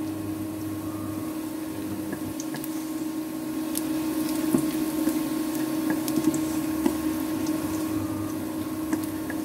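Sliced onion and garlic frying in hot oil in a steel wok, sizzling, while a wooden spatula stirs and scrapes against the pan with small clicks from about two seconds in. A steady hum runs underneath.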